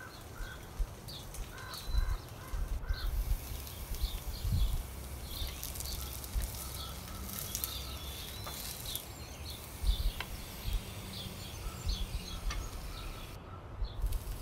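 Small birds chirping repeatedly, short high calls scattered throughout, over a low rumble with a few soft thumps.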